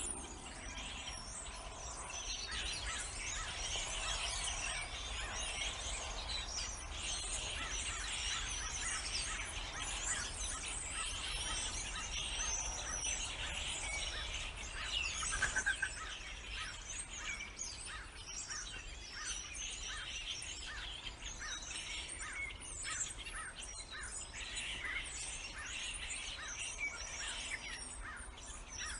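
Many small birds chirping and singing at once in a dense, unbroken chorus of quick overlapping calls, with one louder call about halfway through.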